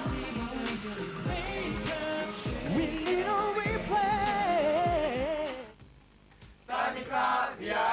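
Korean pop song with sung vocals over a backing track, which cuts off about three-quarters of the way in. After a brief near-silent gap, voices start up near the end.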